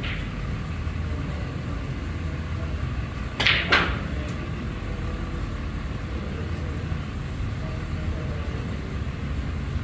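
A snooker shot: the cue striking the cue ball, then the cue ball clicking against the brown about a third of a second later, with a faint click soon after, over a steady low hum.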